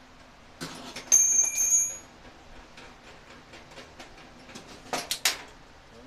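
Metal striking the dryer's sheet-metal panel: a sharp clang rings out high and clear for about a second, followed by scattered light clicks and taps and three quick loud metal knocks near the end.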